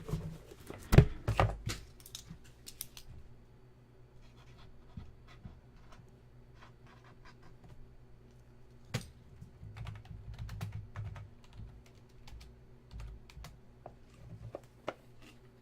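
Typing on a computer keyboard: irregular key clicks scattered throughout, with a few louder knocks about a second in, over a faint steady hum.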